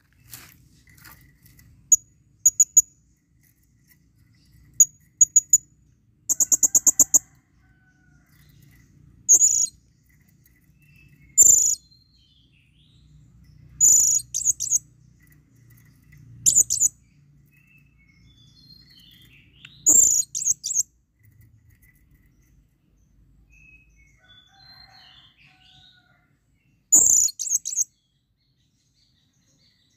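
Blue-crowned hanging parrot (serindit) giving shrill, very high-pitched calls in short clusters every few seconds, including a quick run of repeated notes about six seconds in; it is calling for a female.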